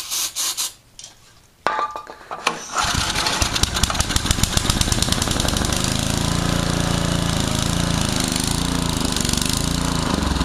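Small air-cooled engine catching and starting about three seconds in, then running with a fast, even beat. It runs, but the owner says its carburetor still needs cleaning.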